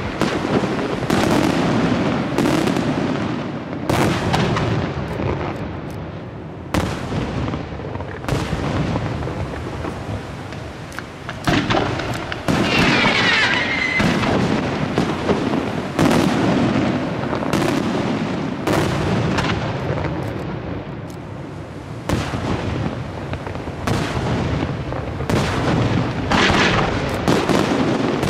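Aerial fireworks display: shells launching and bursting in a rapid, uneven run of bangs, with a whistling glide a little before the middle.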